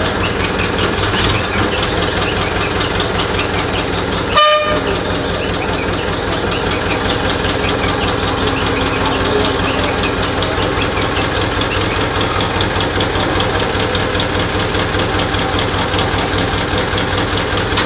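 A crane's engine running steadily as it hoists a submerged car on its cable. A short toot comes about four and a half seconds in.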